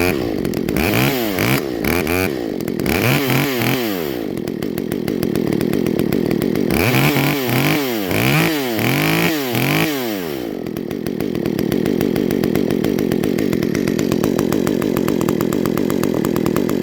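Cameron-ported Stihl MS194T two-stroke top-handle chainsaw running after a restart, blipped in a series of quick revs up and down, settling briefly, blipped again several times, then running steadily from about ten seconds in.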